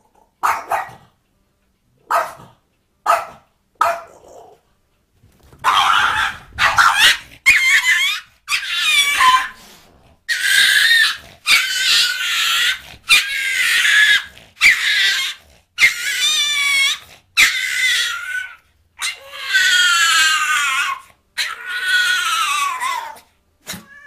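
Small dog barking: a few short sharp barks, then a long string of louder, drawn-out, wavering cries, one after another.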